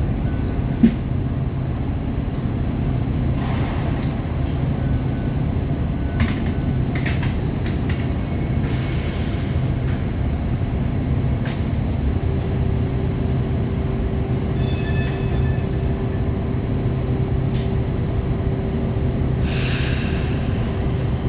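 MTR Light Rail Phase I car standing with its equipment running: a steady low rumble with occasional light clicks. A steady hum joins about halfway through, and a brief cluster of high tones sounds near the end.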